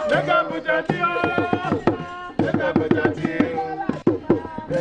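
Voices singing a song over quick, rhythmic percussion strikes.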